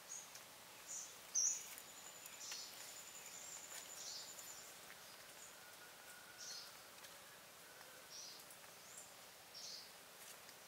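Faint outdoor ambience with short, high bird chirps about every second or two, the sharpest about one and a half seconds in. A thin, high trill runs from then until about four and a half seconds in.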